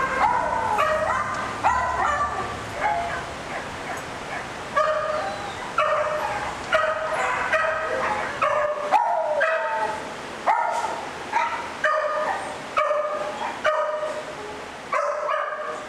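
Dogs barking and yipping in shelter kennels, barks coming about once a second.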